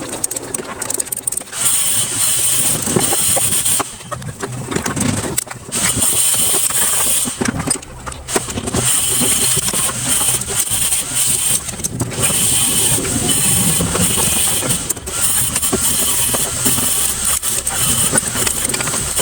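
Power wrench running in repeated bursts of several seconds with short pauses between, a hissing whine, as bolts on the engine head are undone.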